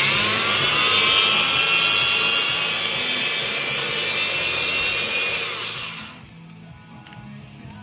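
Power tool spinning up and running steadily for about six seconds, then stopping.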